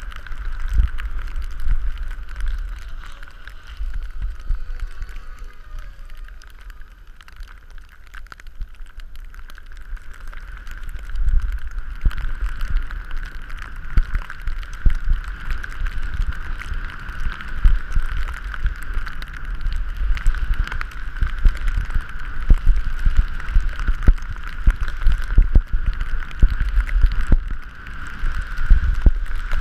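Wind buffeting an action camera's microphone as a skier runs downhill, in uneven gusting surges that ease for several seconds early on and grow stronger later, over a steady thin whistle-like tone.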